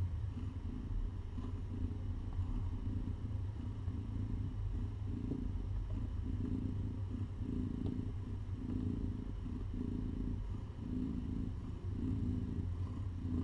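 Mother cat nursing her kittens purring steadily while being stroked, the purr swelling and fading in an even pulse a little more than once a second.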